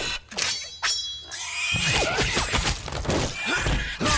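Sound-effect rats squealing and screeching in a dense, wavering chorus, starting a little under two seconds in. Before it come a few sharp clicks and a brief high metallic ring.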